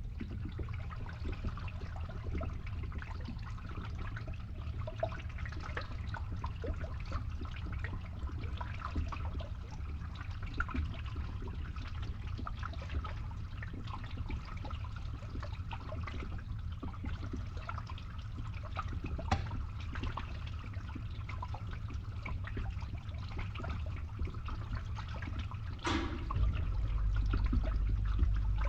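Water trickling and gurgling as it drains through a pipe, over a steady low hum from a pump. About 26 seconds in there is a brief sharp sound, after which the low hum grows louder.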